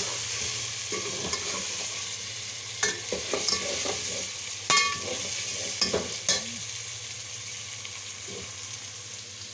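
Chicken pieces sizzling as they brown in oil in a metal pot, stirred with a slotted metal spoon that scrapes and knocks against the pot a few times.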